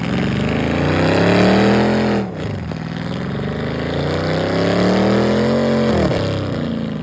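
Car engine, fitted with a 90mm throttle body, revving hard twice: the pitch climbs for about two seconds and falls off, then climbs again for about three seconds and falls off near the end.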